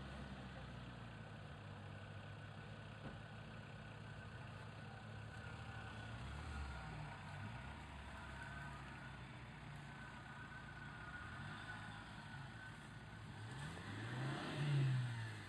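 Off-road 4x4 engine running with repeated revs, rising and falling in pitch, with the loudest rev near the end.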